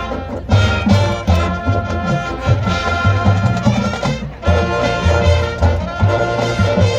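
Marching band playing: brass horns over a regular low beat of drums and bass brass.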